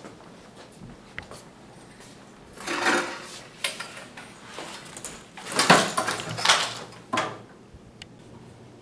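A person setting a backpack down and pulling out a chair to sit at a table: a few short scraping and knocking noises, the loudest a cluster about six seconds in.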